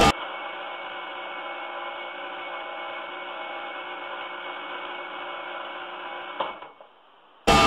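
Steady room tone: an even hiss with a faint electrical hum, broken by a single sharp click about six and a half seconds in, after which it falls almost silent.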